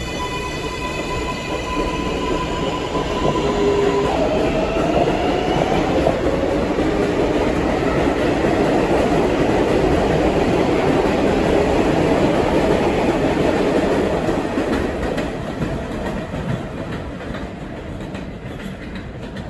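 New York City Subway R188 train accelerating away from an elevated station. Its electric traction motors whine in several steady tones, then one tone rises in pitch about four seconds in. The noise of the cars running along the track swells to its loudest about halfway through and fades near the end as the train leaves.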